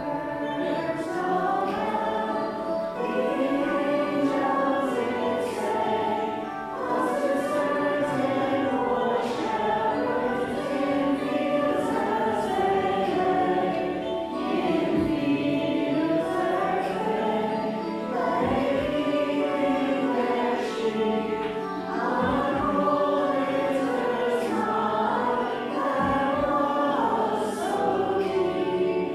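A choir singing a Christmas carol in phrases a few seconds long, with short breaks between them.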